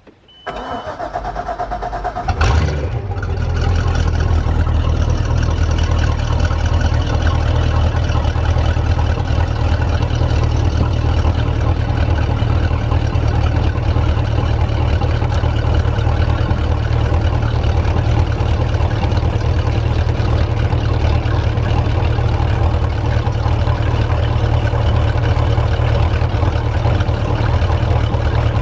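MerCruiser boat engine cranked by its starter for about two seconds, catching about two and a half seconds in, then running steadily at idle while it warms up so the thermostat opens.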